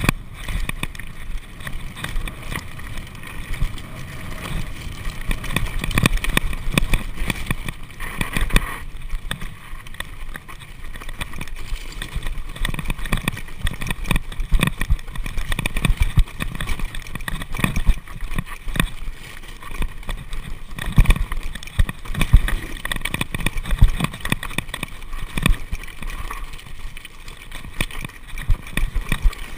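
Mountain bike jolting and rattling down a rough dirt singletrack, with many irregular knocks from the frame and suspension over bumps and a steady rush of wind noise on the microphone.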